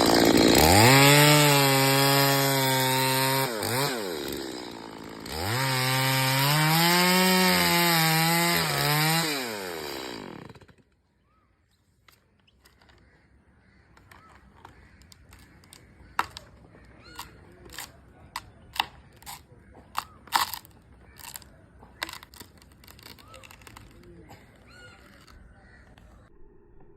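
Chainsaw engine held at high revs twice, its pitch dropping back between the two runs, then cut off about ten seconds in. Faint scattered cracks and knocks follow.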